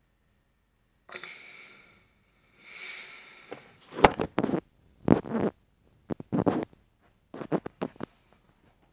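A man's loud breaths, sniffs and snorts, mixed with deep, irregular bumps and rubbing as the phone is handled close to its microphone. It begins after about a second of silence.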